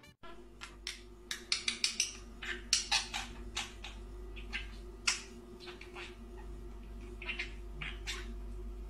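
Budgerigar giving short, irregular chirps and clicks, densest in the first few seconds, over a low steady hum.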